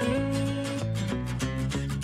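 Background music with plucked and strummed guitar playing a bouncy melody.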